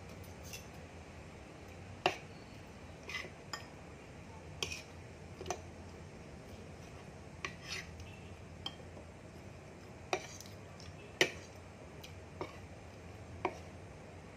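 Metal spoon and fork clinking and scraping against a plate during a meal: about a dozen short, light clinks at uneven intervals, the sharpest about two seconds in and again about eleven seconds in.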